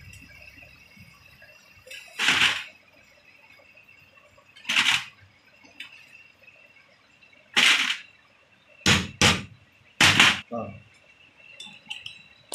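Screwdriver working a screw on the rear housing of an alternator: about six short scrapes and clicks of metal on metal, spaced a couple of seconds apart at first and coming closer together near the end.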